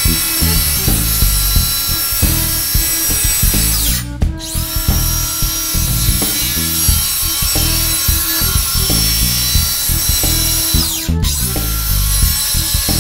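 Circular saw running and cutting through plywood along a track guide, a steady high motor whine, under background music with a stepping bass line. The saw sound drops out briefly twice, about four and eleven seconds in.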